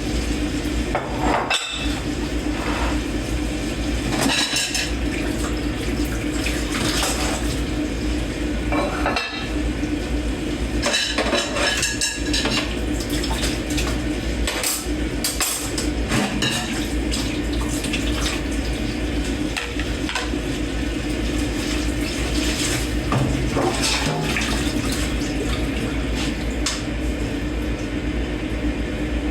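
Dishes and cutlery being washed by hand in a kitchen sink: irregular clinks and clanks of plates and forks knocking together over steadily running tap water.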